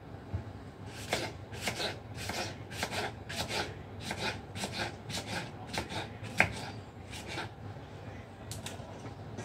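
Small knife cutting tomatoes on a wooden chopping board, with the blade knocking the board about twice a second. One sharper knock comes about six seconds in, and the cutting stops near the end.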